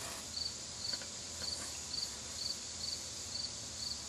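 A cricket chirping in a steady, even rhythm, about two high chirps a second, over a faint hiss, with a few faint clicks.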